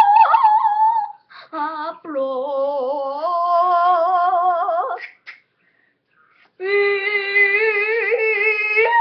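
A girl singing long, wavering held notes without clear words, in three phrases separated by short pauses; the middle and last phrases are each held for a few seconds.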